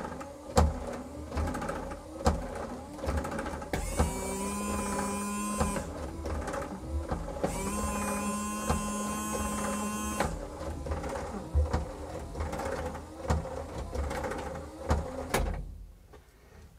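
Piaggio Ape windscreen wiper motor running with the wiper arm clicking as it sweeps. The electric washer pump whines in two spells of about two seconds each, squirting fluid onto the screen. The wiper stops shortly before the end.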